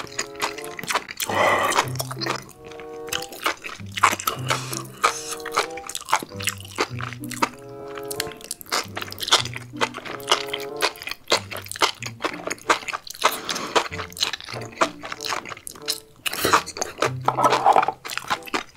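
Background music with steady chords and a bass note repeating about every second and a quarter, over crisp chewing clicks from eating spicy enoki mushrooms.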